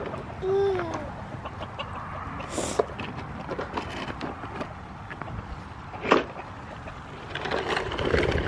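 Chickens clucking, with one short arching call about half a second in and a sharp knock a little after six seconds.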